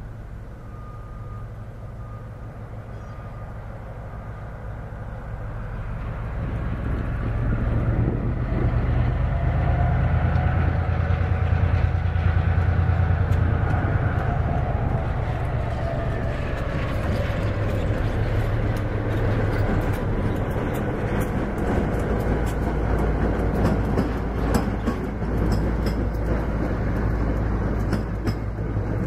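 Morristown & Erie diesel switcher locomotive running under power as it approaches and passes with one passenger coach. The engine rumble builds over the first several seconds and is loudest about a third of the way in. In the second half it gives way to a run of sharp clicks from the passing wheels.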